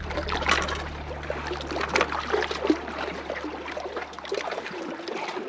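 Reservoir water lapping against shoreline rocks, with scattered small splashes and clicks. A low steady hum fades out about four and a half seconds in.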